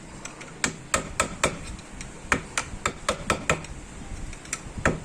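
Light hammer taps on the metal end cap of a power steering rack, sharp ringing knocks in quick runs of three or four with short pauses between.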